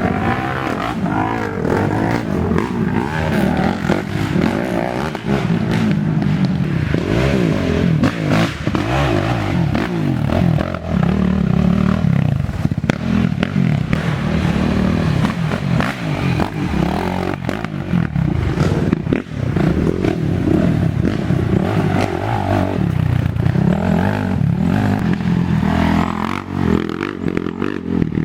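Racing ATV engines revving up and down as the quads ride the course, with several engines overlapping and some clatter throughout.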